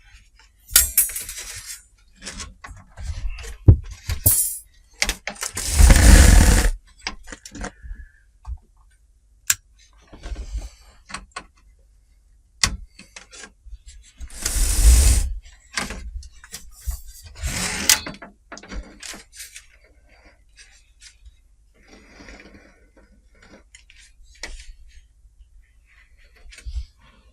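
Handling noises from TV parts on a workbench: scattered clicks, clatters and rustles, with two louder scraping bursts of about a second each, around six and fifteen seconds in.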